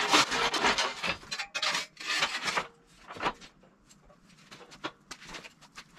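Rough scraping and knocking of objects being shifted by hand for about three seconds, then a few faint scattered clicks.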